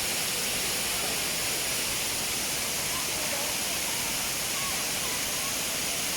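Waterfall rushing with a steady, even hiss of falling water.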